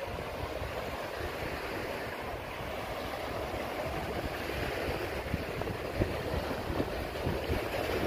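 Sea waves washing, with wind buffeting the microphone in an uneven low rumble.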